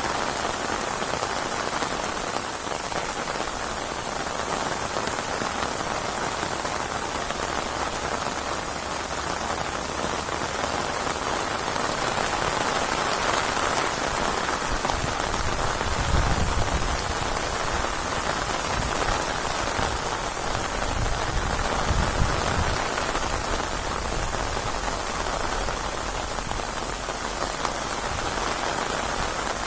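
Steady rain falling in a rainstorm: a dense, even hiss of drops. A little past halfway come two brief low rumbles.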